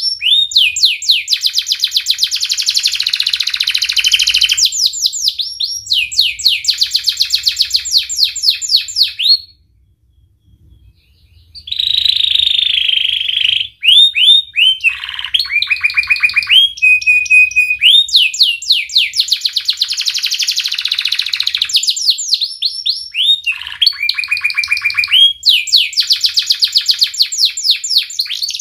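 Domestic canary singing: long fast trills of rapidly repeated notes and rolling phrases, with a few short held whistled notes, breaking off for about two seconds about a third of the way in.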